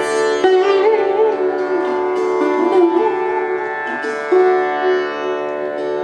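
Sitar playing a slow Indian classical phrase over a steady ringing drone. Fresh plucks sound about half a second in and again just after four seconds, and the notes between them slide and bend in pitch.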